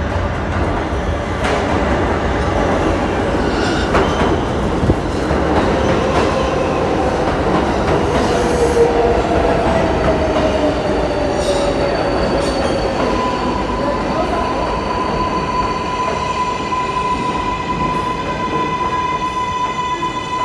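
New York City Subway 7 train of R188 cars pulling into an underground station and slowing to a stop. Steady wheel-on-rail rumble, with a whine falling in pitch as it slows. About thirteen seconds in, a steady high tone sets in.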